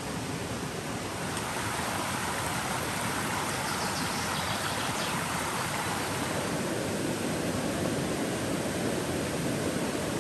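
Small rocky stream running over stones: a steady rushing of water, a little louder after the first second or two.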